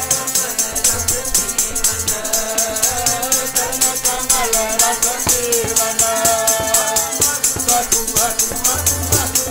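Sikh keertan: voices singing a shabad over harmonium, with a fast, even rattle of hand percussion.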